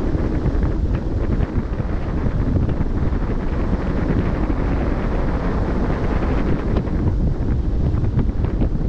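Steady wind noise on the microphone, heaviest in the low end, over the rush of sea water at a moving ship's bow.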